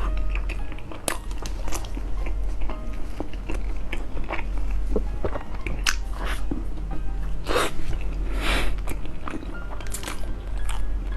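Close-miked eating sounds: biting into and chewing a purple-rice (black rice) sandwich bread with cheese filling, full of small wet clicks and crackles, with two louder crunchy bites past the middle.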